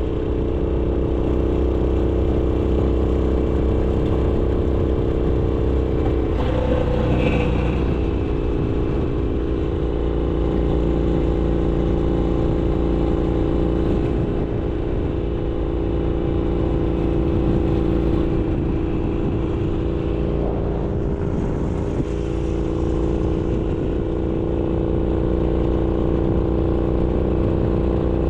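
Harley-Davidson Sportster Iron 883's air-cooled 883 cc V-twin running through a Roland Sands Design 2-into-1 exhaust, holding a steady engine speed while riding.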